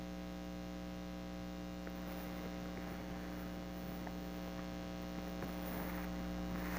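Steady electrical hum made of several even tones, with faint rustling and handling noise coming in during the second half.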